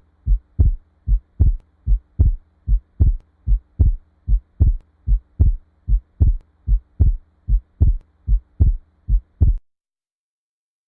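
Recorded heart sounds heard through a stethoscope: low thumps coming in pairs, lub-dub, about 75 beats a minute over a faint steady hum, stopping near the end. The recording is played as an example of a third heart sound (S3).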